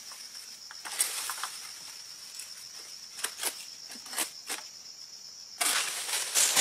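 Steady high drone of insects, with several sharp clicks through the middle. Near the end comes a loud rustling scrape as an egrek, a palm-harvesting sickle on a long pole, is pushed in among the oil palm fronds and fruit bunches.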